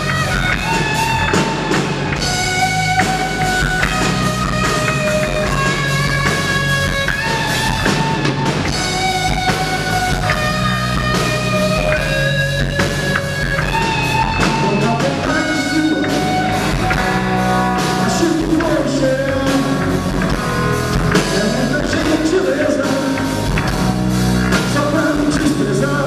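Live rock band playing loud: two electric guitars over a drum kit, with long held lead notes.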